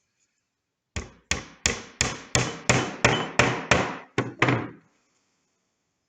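Hammering at a woodworking bench: about ten quick blows in a row, roughly three a second, each ringing out briefly, stopping just before five seconds in.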